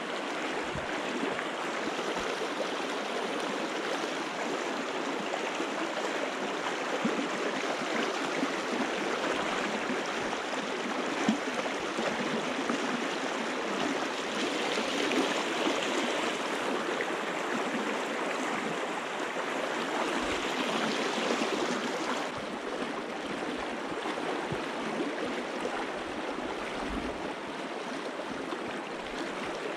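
Steady rush of running stream water, an even noise that swells slightly twice near the middle.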